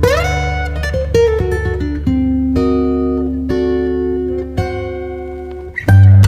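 Background music: plucked string notes, one sliding up in pitch at the start, over a steady low drone, with a louder, bass-heavy passage starting just before the end.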